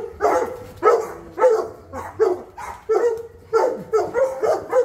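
A dog barking over and over in a steady rhythm, about two barks a second.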